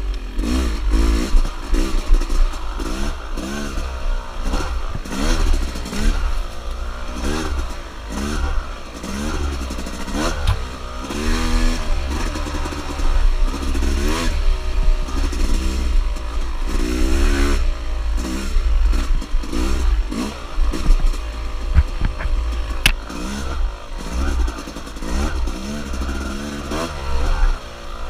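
Dirt bike engine revving up and falling back over and over as it is ridden, its pitch climbing and dropping every second or two over a steady low rumble. A single sharp knock sounds about two-thirds of the way through.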